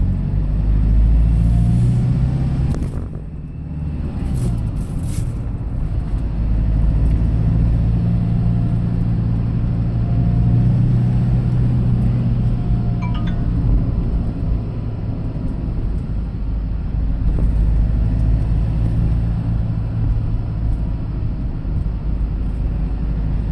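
A vehicle being driven: steady engine and road rumble heard from inside the cab, easing briefly about three seconds in.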